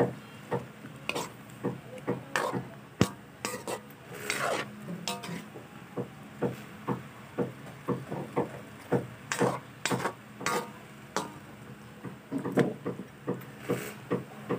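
A cooking utensil stirring a thick chicken, potato and carrot stew in a wok, knocking and scraping against the pan in quick irregular strokes.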